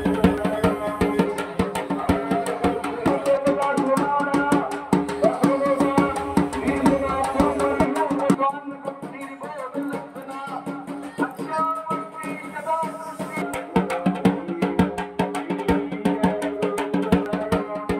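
Music with fast, dense drumming and a melody over a steady low drone.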